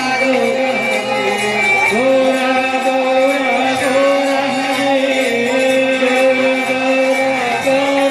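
Devotional kirtan: voices singing long, held notes over instruments with a steady beat.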